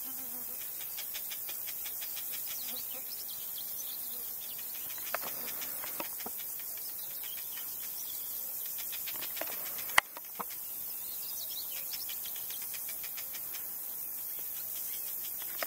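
Steady high-pitched insect chirring, with faint scattered bird chirps and a few short whistled calls around five and nine seconds in. A single sharp click about ten seconds in is the loudest sound.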